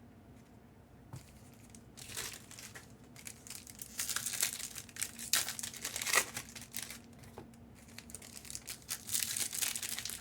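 Plastic wrapping crinkling and tearing, as trading card boxes or packs are unwrapped. It starts about two seconds in and comes in irregular bursts of crackling.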